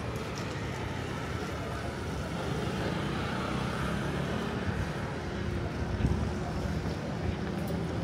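Busy outdoor city ambience: traffic rumble, with a vehicle going past that swells and fades in the middle, and a short knock about six seconds in. Wind catches the microphone now and then.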